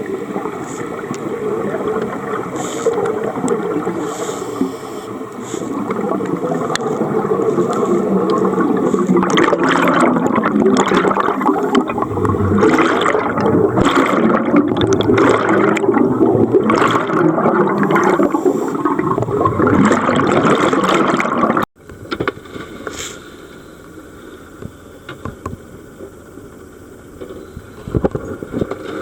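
Underwater scuba bubbles: a diver's regulator exhaust gurgling and rushing, heaviest with a run of bubble bursts in the middle. It cuts off abruptly about 22 seconds in, leaving a quieter underwater hiss.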